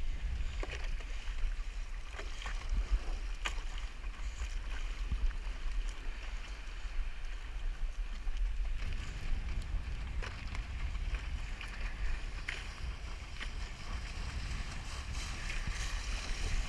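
Wind buffeting the action camera's microphone over water splashing and slapping against a windsurf board, with short splashes scattered throughout. The wind rumble grows stronger about nine seconds in.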